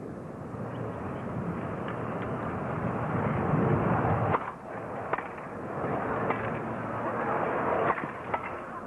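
Tennis crowd murmuring, swelling briefly before a serve. About four seconds in, sharp racket-on-ball strikes begin, a serve and then a rally, with about five hits roughly a second apart over a lower crowd hum.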